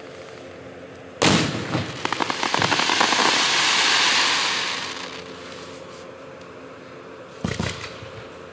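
Aerial fireworks shell bursting with a sharp bang about a second in, followed by a few seconds of dense crackling that swells and fades away. Another bang with a brief crackle comes near the end.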